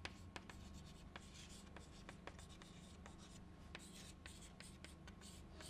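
Faint chalk writing on a chalkboard: quick taps and scratching strokes as words are written, over a low steady hum.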